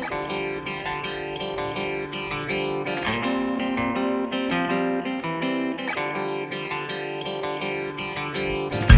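Background music led by plucked guitar, with notes picked in a steady pattern.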